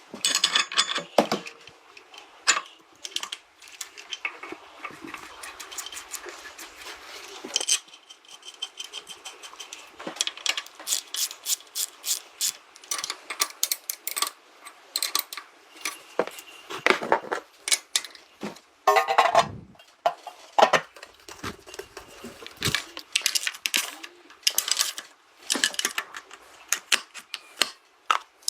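Irregular metallic clicks and clinks from small hard parts or tools being handled, some coming in quick runs.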